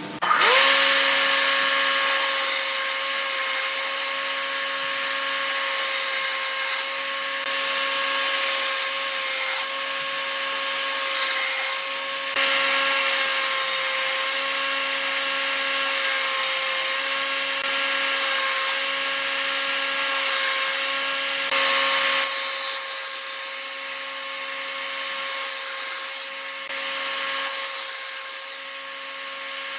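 Electric power tool starting up just after the opening and running steadily at a high, even pitch, with repeated passes of wood against it, about one a second, as wood is cut or sanded.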